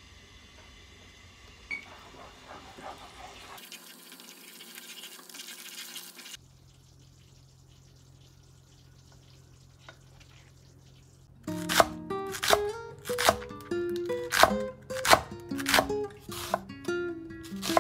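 Kitchen knife chopping a green onion on a wooden cutting board, sharp strokes about twice a second starting about two-thirds of the way in, over background music.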